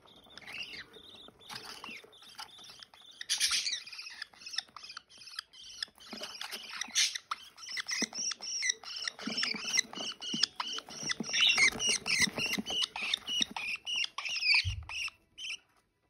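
Budgerigars chirping and chattering in quick short calls, busiest in the second half, mixed with small dry clicks of a chick's beak cracking seeds.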